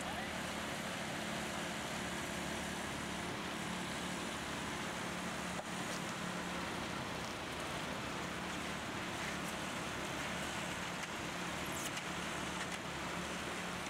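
An engine running steadily with an even, unchanging low hum, from the machinery working the concrete pour.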